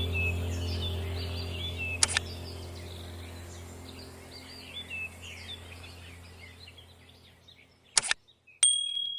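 Birds chirping over a steady low hum that slowly fades away. There is a sharp click about two seconds in, another near the end, and then a short high beep.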